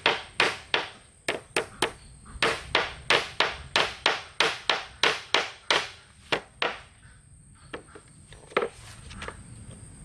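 Rapid repeated blows of a tool on wood, about four a second, stopping about two-thirds of the way through, followed by a few single knocks.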